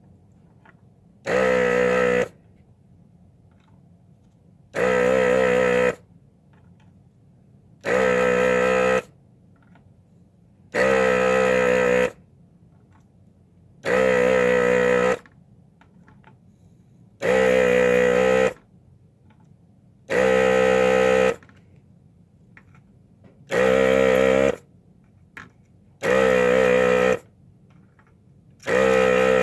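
Hakko 808 desoldering gun's vacuum pump buzzing in bursts of about a second, roughly every three seconds, about ten times: one pull of suction per pin to clear the melted solder.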